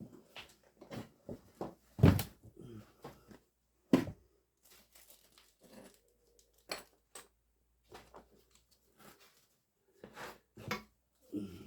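Irregular knocks, clinks and rustles of tools and containers being handled, with the sharpest knocks about two and four seconds in.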